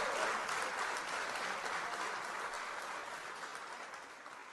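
Audience applauding at the end of a live performance, the clapping fading out steadily toward the end.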